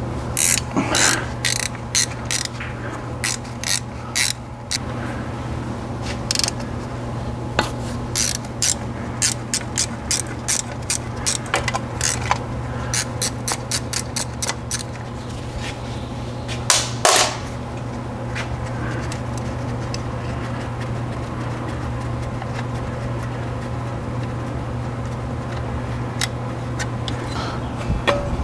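Hand ratchet wrench clicking in quick runs as the bolts of a factory transfer-case skid plate are backed out, with a louder metal clatter about 17 seconds in. A steady low hum runs underneath throughout.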